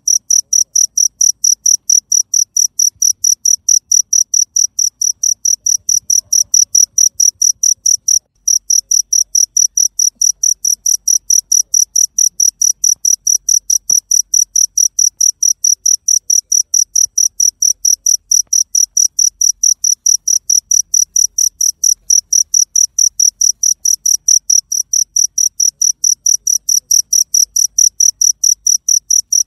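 A cricket chirping in a loud, steady stream of rapid, even, high-pitched pulses, with one brief break about eight seconds in.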